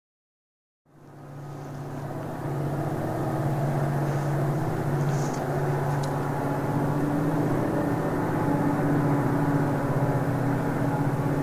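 Diesel locomotives working hard under power as they approach: BL34's engine runs with a steady drone and a distinct howl, fading in about a second in and growing louder. The howl is worse than usual, and the uploader wonders whether the loco may be close to a failure.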